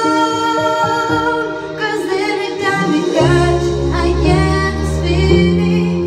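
A woman singing into a handheld microphone over backing music, holding long notes. Low bass notes come in about three seconds in.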